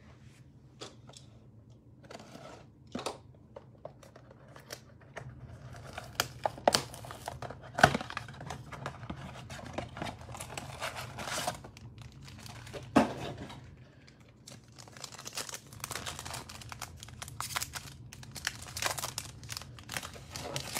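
Hands tearing open a cardboard Donruss Optic trading-card blaster box and handling its foil card packs: tearing, crinkling wrappers and a few sharp snaps, two of them louder, about 8 and 13 seconds in. The crinkling gets busier in the last few seconds.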